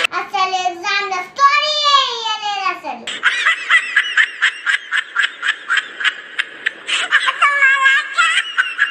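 A young girl's high-pitched voice: a few drawn-out syllables gliding up and down in pitch, then from about three seconds in a rapid string of short repeated vocal sounds, about four a second.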